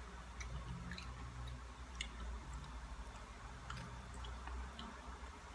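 A person chewing dried danggit fish, with scattered small crisp clicks as it is bitten and chewed.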